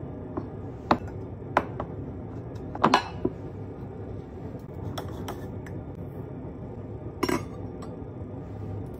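Tableware being handled on a wooden table: a ceramic plate, a glass jar and a teacup with a metal tea-infuser ball clink and knock in a string of separate sharp strikes. The loudest strikes come about three seconds in and again near seven seconds.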